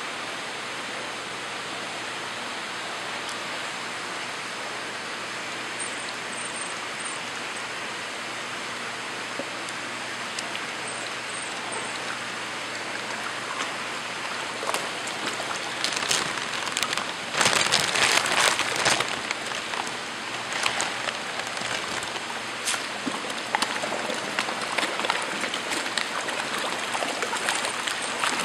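Steady rush of moving water, then from about halfway the splashing and thrashing of a crowd of big koi feeding at the surface, loudest a few seconds after it starts and continuing in uneven splashes.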